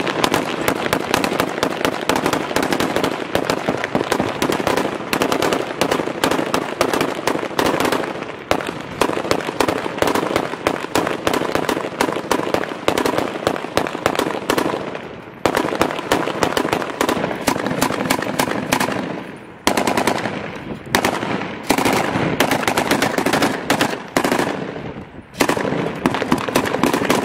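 Close-range automatic gunfire: Kalashnikov-pattern rifles and a belt-fed PK-type machine gun firing long, rapid bursts, with a few short breaks in the second half.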